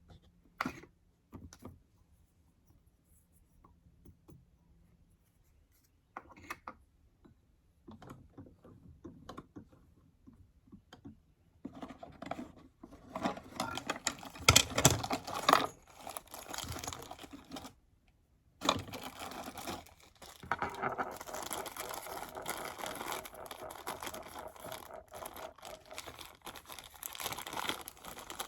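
1895 hand-crank sewing machine. It first gives scattered clicks, as if being set up, then from about halfway in runs with a continuous clatter as it is cranked. The clatter stops briefly, then resumes.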